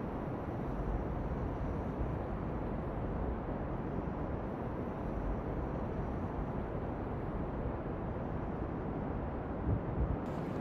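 Steady rumble of distant expressway traffic, with two brief low thumps near the end.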